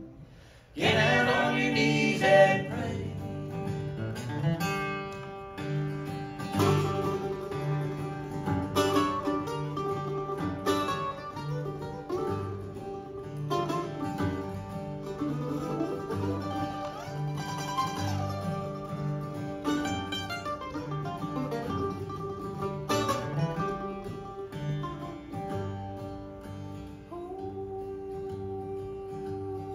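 Acoustic bluegrass band playing live: acoustic guitar, mandolin and fiddle come in together sharply about a second in, after a brief pause. The guitar keeps a steady strummed rhythm, and a man's voice sings over it.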